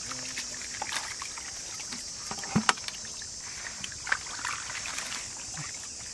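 Water sloshing and splashing as hands and a plastic basket scoop through a shallow muddy pool, with dribbling and trickling water. The sharpest splashes come in a quick pair about two and a half seconds in and once more about four seconds in, over a steady high hiss.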